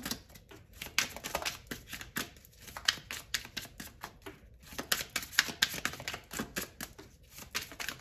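Tarot cards being shuffled by hand: an uneven patter of quick clicks and flaps as the cards slap and slide against each other.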